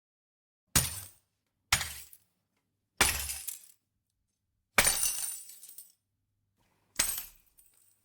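Glass breaking sound effect: five separate smashes, one after another, each a sudden crash that dies away within about a second. The fourth crash lasts longest.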